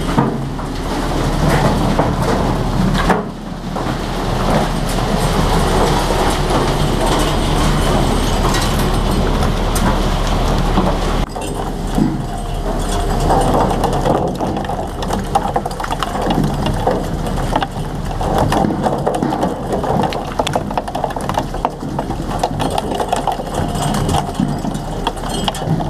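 A fishing boat's engine and deck machinery running steadily, with frequent knocks and slaps as freshly caught mackerel land and flap in a steel chute.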